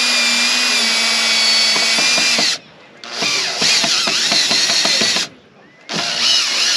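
Makita cordless driver screwing a wooden plaque onto a wall, its motor whining in three runs: the first stops about two and a half seconds in, the second follows half a second later and stops around five seconds in, and the third starts about a second after that. The screw is being driven home in short bursts.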